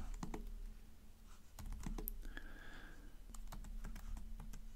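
Typing on a computer keyboard: a scattered run of key clicks, thinning out for a moment about a second in.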